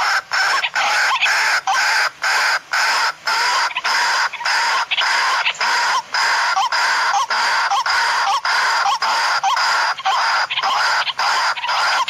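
Waterhen (kurowak) calling: a loud, unbroken run of harsh clucking notes, about two to three a second, each with a short upward squeak. It is the call used as a lure to draw the birds in.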